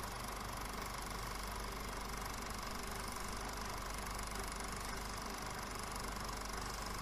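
Steady hiss and low hum from a VHS transfer of a silent film, with no other sound.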